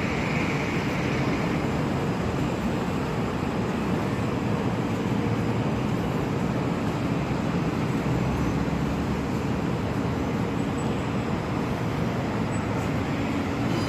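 A TTC Flexity Outlook low-floor streetcar rolling slowly, a steady low rumble with a faint hum, amid street traffic noise.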